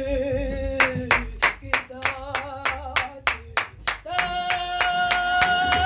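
A man singing a held, wavering note, then hand clapping in a quick steady rhythm, about four claps a second. About four seconds in, a steady high sung note comes in over the clapping.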